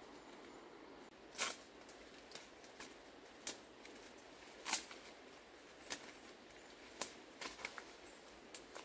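Large leaves being picked and handled by hand: about ten short, sharp snaps and crisp rustles at irregular intervals, the loudest two about a second and a half and nearly five seconds in, with a quick cluster near the end, over a faint steady hiss.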